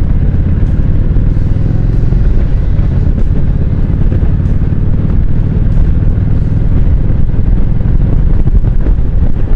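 Kawasaki Vulcan cruiser motorcycle running at highway speed, a steady low rumble of engine and exhaust mixed with heavy wind buffeting on the microphone.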